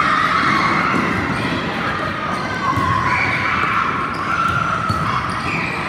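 Many children shouting and squealing at once in a gymnasium, with running footsteps and rubber balls bouncing on the wooden floor.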